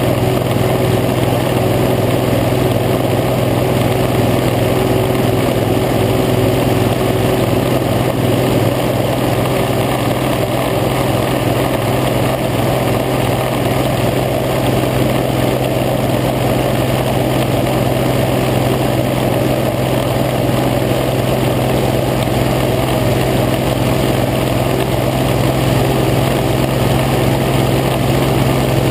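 Hovercraft's engine and thrust fan running steadily while under way, one constant drone that holds its pitch.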